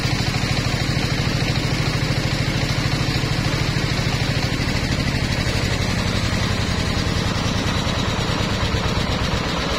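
Single-cylinder stationary diesel engine running steadily with a fast, even thumping. It drives a circular saw blade through a V-belt, and the blade spins free without cutting.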